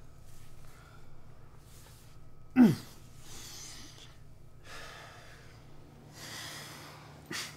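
Close, heavy breathing of two people, a series of soft breaths in and out. About two and a half seconds in, one short loud gasp slides sharply down in pitch, and a brief click comes near the end.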